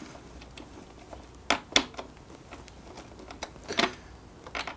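A handful of small, sharp clicks as a screw is turned by hand with a small screwdriver into the plastic housing of an EcoFlow R600 portable power station.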